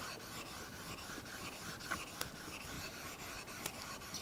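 Coarse 220-grit Norton water stone rubbed back and forth over the steel top plate of a magnetic sine chuck, lapping it flat: an even, rhythmic gritty scraping of several strokes a second, with a few sharp ticks about two seconds in and again near the end.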